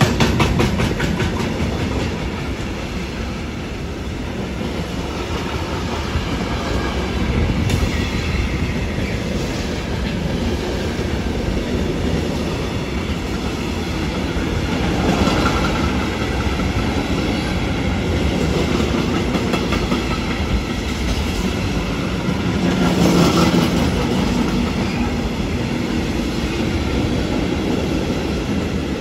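Container freight train of articulated container wagons rolling past: a steady rumble of wheels on rail, with a rapid even clatter over the rail joints at the start. The rolling noise swells louder and brighter twice, about halfway through and again near the end.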